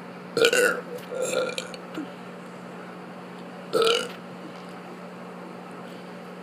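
A child burping on purpose: two burps close together about half a second in, then a third about four seconds in.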